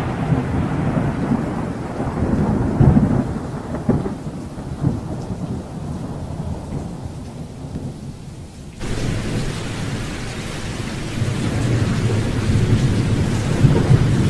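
Thunderstorm sound effect: rolling thunder over steady rain. The rumble eases off, starts again abruptly about nine seconds in, and cuts off suddenly at the end.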